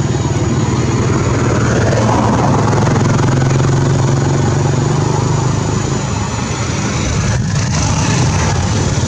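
A motor engine running steadily, swelling a little in the middle and easing off after about six seconds.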